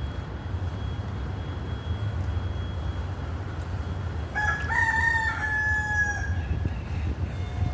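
A rooster crows once, a little past halfway through, one drawn-out call lasting about two seconds, over a steady low background rumble.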